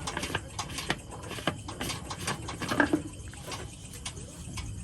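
Scattered light clicks and knocks of objects being handled, with a louder knock about three seconds in, over a low steady hum.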